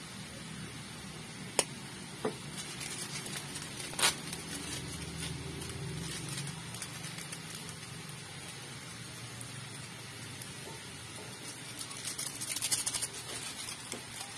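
Chicken pieces sizzling in a pan while seasoning is shaken over them, with a few sharp clicks of the shaker and containers being handled in the first few seconds and a short stretch of louder crackling near the end.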